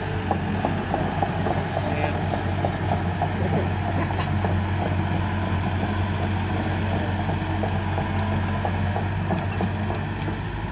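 Excavator diesel engine running steadily with a deep, even hum, and a fast light clatter over the first few seconds.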